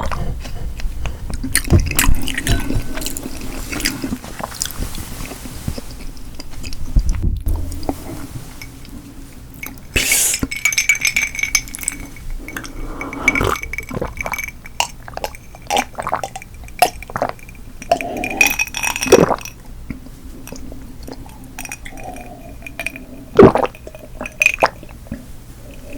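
Close-miked eating and table sounds: many small clinks and taps of tableware, some ringing briefly, mixed with wet liquid sounds.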